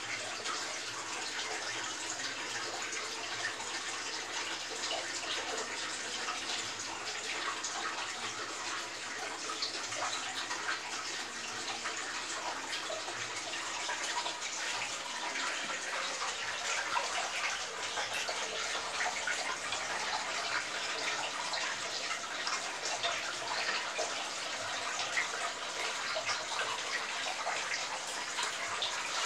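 Aquarium water bubbling and splashing steadily with a fine crackle, a little louder from about halfway through.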